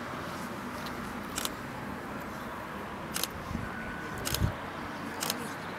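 Steady outdoor background noise with four short, sharp clicks spread over the few seconds and a dull thump a little past the middle.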